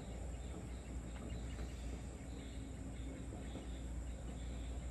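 Evening outdoor ambience: faint insects chirping, high-pitched and scattered, over a steady low rumble.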